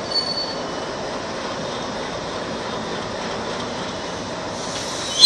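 Freight train of covered wagons rolling past on the track: a steady rumble of wheels on rails, with a brief high squeal about a quarter second in.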